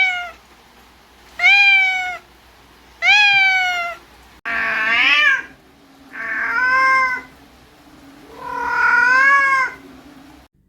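A domestic cat meowing repeatedly: about six separate meows, one every second and a half or so, the last one drawn out longer.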